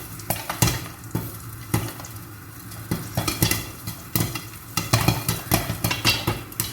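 Popcorn kernels popping in a covered pan on the stove: sharp, irregular pops, several a second and busier in the second half, over a low steady hum. The popping means the batch is close to done.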